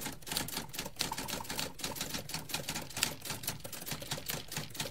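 Rapid, irregular clicking and tapping, several sharp clicks a second.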